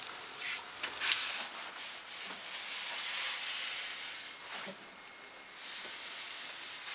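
Garden hose spray nozzle hissing as water sprays over plants and leaves, easing off briefly about five seconds in.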